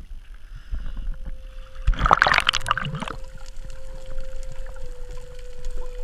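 Water splashing at the sea surface, with a loud burst of splashing and rushing water about two seconds in as the diver goes under. Then underwater: a steady hum and scattered faint clicks.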